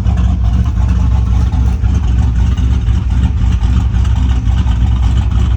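Turbocharged LQ4 6.0-litre V8 with a truck cam idling steadily with a choppy lope and a deep, bassy exhaust note.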